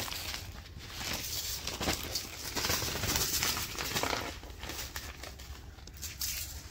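Plastic packaging crinkling and rustling as it is handled, with uneven crackles throughout.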